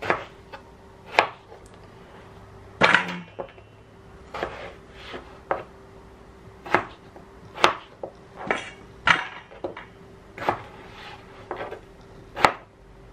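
Chef's knife chopping raw potatoes into cubes, the blade knocking on a plastic cutting board in irregular sharp chops about one a second. A faint steady hum runs underneath.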